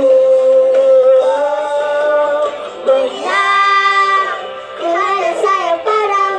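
Young girls singing a song over music, one into a handheld karaoke microphone. A long high note is held for about a second a little past the middle.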